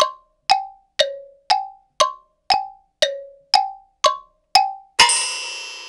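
Percussion strikes with a bell-like ring, evenly about two a second, alternating between a lower and a higher pitch, then a loud ringing crash about five seconds in.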